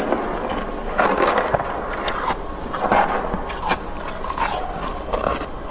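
A metal spoon scraping and scooping thick frost from a freezer compartment: a series of gritty scrapes, roughly one a second.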